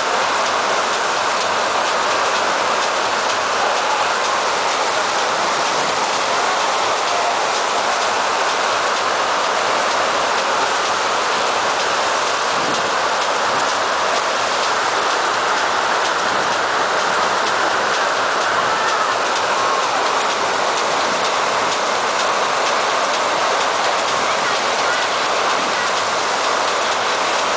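Loud, steady rush of water from a FlowRider artificial surf wave: a sheet of pumped water streaming continuously up the padded wave surface, with no break or change.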